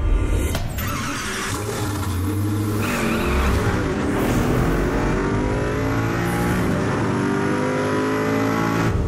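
Sound-designed sports car engine revving higher and higher, with rushes of noise like passing speed and skidding tyres in the first few seconds. It cuts off suddenly near the end.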